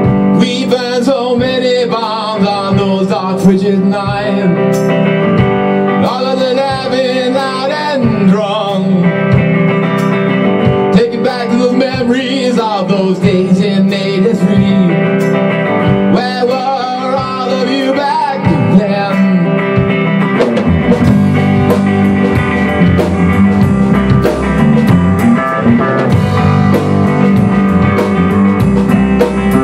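Small rock band playing live: electric guitars over a Tama drum kit, with a wavering lead melody above them for the first two-thirds. About twenty seconds in the drums get busier, with more cymbal and drum hits.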